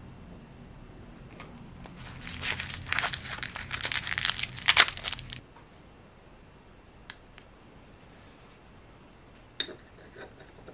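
Packaging of a new ball bearing being torn open and crinkled for about three seconds, followed near the end by a short knock.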